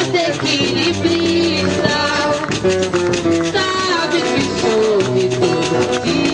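A woman singing a melody with held notes, accompanied by an acoustic guitar strummed in a steady rhythm.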